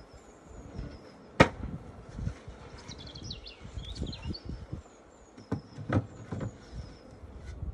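Wooden beehive parts knocking together as they are handled: one sharp knock about a second and a half in, then a few softer knocks near the end as the gabled wooden roof is set down on the hive.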